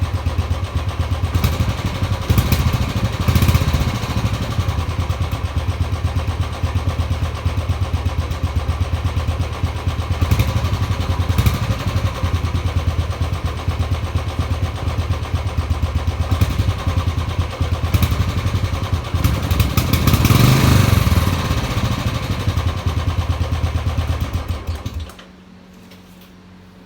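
Royal Enfield motorcycle engine running on its stock silencer with an even exhaust beat, revved up briefly about three seconds in and again around twenty seconds in. It is switched off near the end and goes quiet suddenly.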